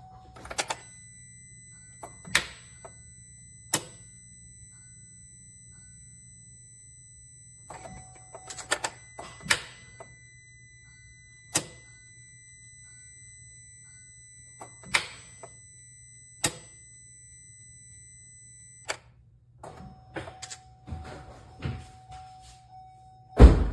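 Sharp single clicks every one to four seconds in a car that will not start, over a faint steady hum and a thin high electronic tone. A louder thump comes near the end.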